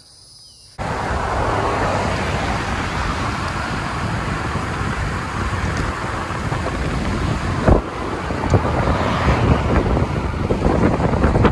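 Wind rushing over the microphone of a camera carried on a moving bicycle, with road noise underneath. It starts suddenly about a second in and runs steadily, with a few knocks and bumps about eight seconds in.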